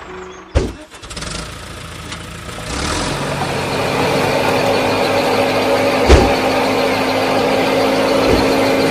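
A sharp click, then a small motor spins up about three seconds in and runs steadily with an even hum. A single knock comes about six seconds in.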